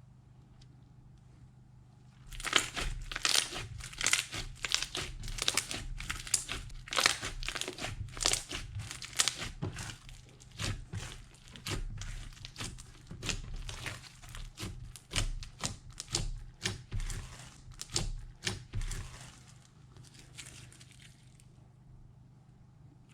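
Christmas snow slime being squished and worked by hand, a dense, irregular run of crackling and popping clicks that starts about two seconds in and stops a little before the end.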